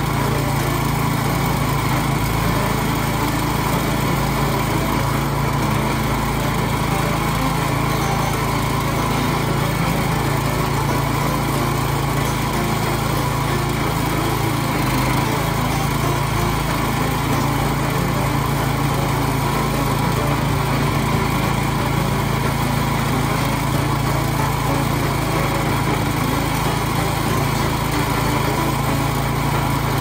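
The Harbor Freight towable backhoe's small gasoline engine running steadily at a constant speed, driving the hydraulics as the boom and bucket dig.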